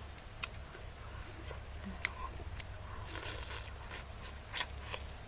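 A person eating, chewing and biting, with scattered small crunches and clicks at irregular intervals.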